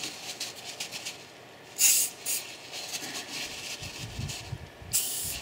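Aerosol penetrating spray hissing out in short bursts, about two seconds in and again near the end, as it is sprayed onto a rusty brake rotor's centre to loosen corrosion holding it to the hub.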